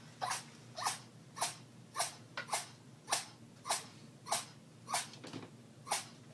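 A kitten sneezing over and over in a rapid series: about ten short sneezes, evenly spaced a little over half a second apart, with one slightly longer pause about five seconds in. The owner thinks something is probably irritating his nose.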